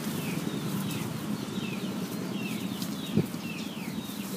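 A small bird calling over and over with short falling chirps, about two a second, over a steady low hum. A brief thump comes about three seconds in.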